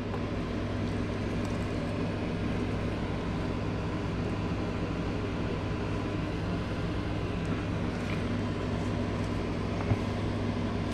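Steady machine hum with an even whoosh, unchanging throughout, and one faint click near the end.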